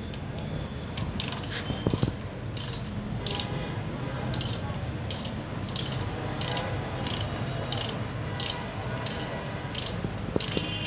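Ratchet wrench clicking in a steady rhythm, about one to two clicks a second, as the engine-oil drain plug of a Hero Splendor i3s motorcycle is undone to drain the oil.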